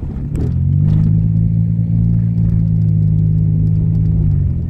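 Car engine heard from inside the cabin, pulling with a steady low drone that rises a little in pitch early on and then holds. It drops away near the end, as if the throttle were released.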